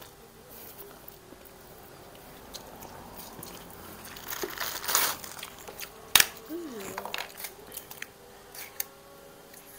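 Crunching and chewing of fried rice eaten by hand with crisp kerupuk crackers, with scattered small clicks and one loud sharp crack about six seconds in.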